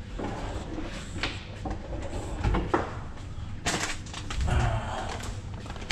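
Kitchen cupboard door opened and shut, with a few sharp knocks and short scrapes as things inside are moved.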